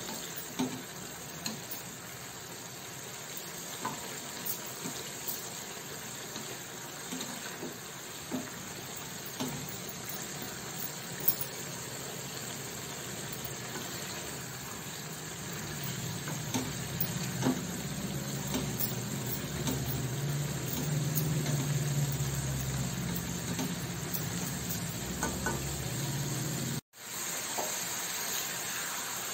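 Chopped carrots and green beans sizzling steadily in oil in a kadai, stirred with a wooden spatula that knocks and scrapes against the pan now and then. A low hum joins about halfway, and the sound cuts out for an instant near the end.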